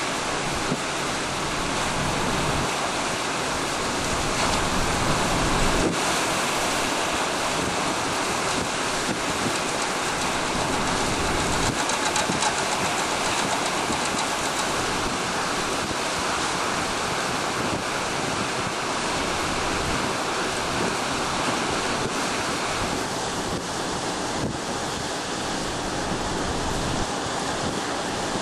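Gusty tropical-storm wind buffeting the microphone, mixed with choppy waves breaking and splashing against shoreline rocks: a steady, dense rush of noise with no let-up.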